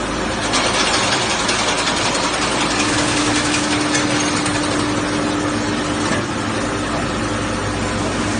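Fish-processing machine running, a steady mechanical noise with a hum. It gets louder from about half a second in, then drops back a little after about six seconds.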